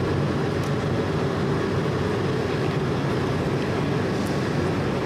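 Loud, steady cabin noise of a jet airliner about to land: engine and airflow noise heard from inside the cabin, with a constant low hum under it.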